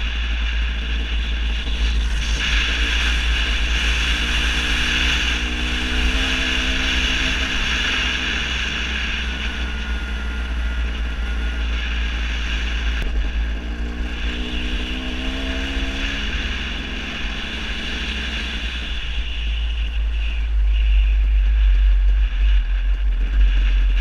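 KTM 250 EXC two-stroke dirt bike engine running while riding a dirt road, under heavy wind rumble on the microphone.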